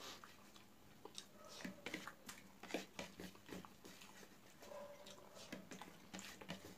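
Faint, irregular wet clicks and smacks of eating by hand: fingers mixing rice and curry on a plate, and chewing.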